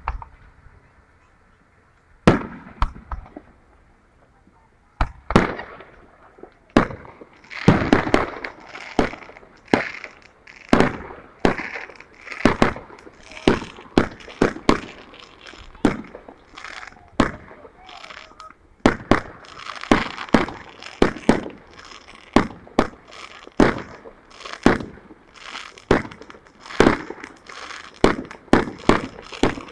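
Aerial fireworks shells bursting: a first bang about two seconds in, then a quick, continuous run of booms and crackles, often one or two a second.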